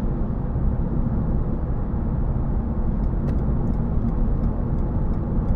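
Steady road and tyre noise inside the cabin of a Toyota Yaris GR Sport at motorway speed. Faint light ticks come about three a second in the second half.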